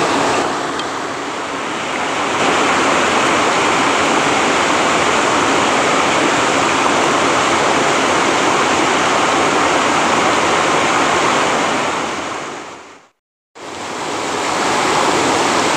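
Steady, loud rush of a small waterfall on a river. Near the end the sound fades out to silence for about half a second, then fades back in.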